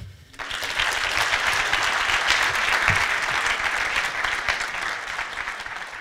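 Audience applauding: the clapping builds within the first second, holds steady, and tapers off toward the end.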